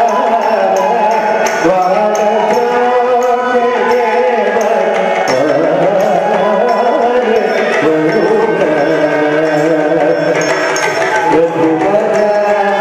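Carnatic classical music accompanying a Bharatanatyam dance: a flowing melodic line over a steady beat of hand-drum strokes.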